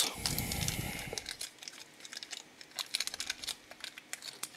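Small clear plastic bag crinkling in the hands as it is worked open, louder with a low handling rumble for the first second or so, then a string of short, scattered crackles.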